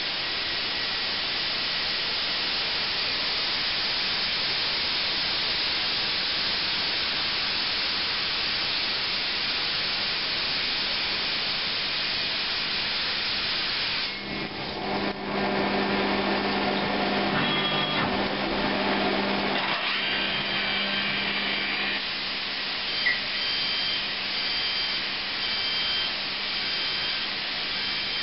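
Okuma Genos L300E-M CNC lathe cutting a spinning metal workpiece under flood coolant: a steady hiss of coolant spray over a low, even machine hum. About halfway through the hiss drops back and the machine's whine shifts to several steady tones, with a couple of sharp clicks near the end.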